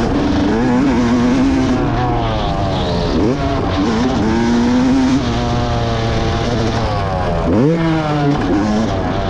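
Yamaha YZ motocross bike engine heard on board, revs rising and falling as the throttle is worked, with a sharp drop and fast climb back about three and a half and again about seven and a half seconds in.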